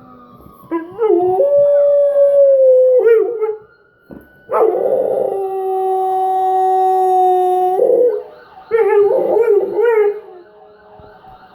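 A dog howling along with a siren it hears, giving three long howls; the middle one is held steady for about three seconds. A siren sounds faintly underneath, and near the end its fast repeating yelp comes in.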